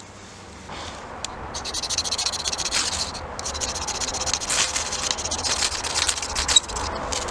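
Rapid, rough scraping strokes, one after another, starting about a second and a half in and going on to near the end.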